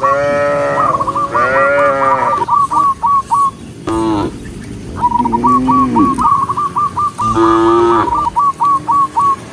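Cows mooing several times, long calls that rise and fall in pitch. A fast run of short, high repeated notes comes between and over the moos.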